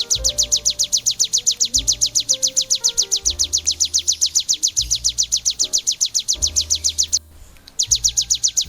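A ciblek (prinia) singing a fast, unbroken trill of high, even notes, about a dozen a second, breaking off for under a second near the end. Background music with a pulsing bass and a soft melody runs underneath.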